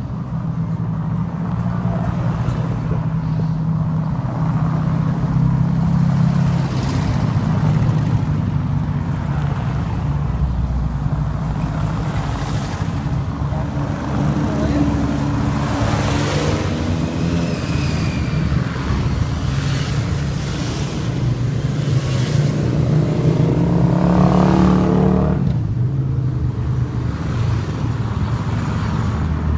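A procession of motorcycles, trikes and cars driving past one after another, their engines running steadily. Each engine note rises and then falls as it goes by, with the loudest pass-by about three quarters of the way through.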